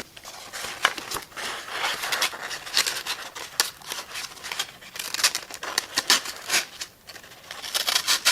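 Sheet of sandpaper being torn into a strip and handled: irregular paper rustling and crinkling with many small clicks.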